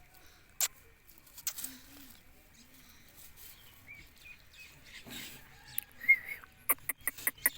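Indian ringneck parakeet giving a few short chirps, mixed with scattered sharp clicks and taps that come in a quick cluster near the end.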